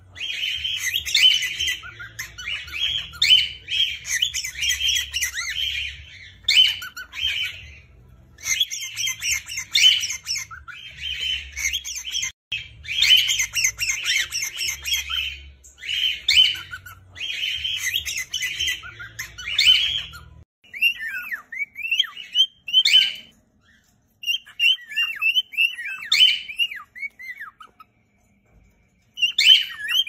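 Several cockatiels chattering and chirping together in bursts a few seconds long, with a low rumble underneath. About two-thirds through the rumble stops and the sound changes to a few separate falling chirps.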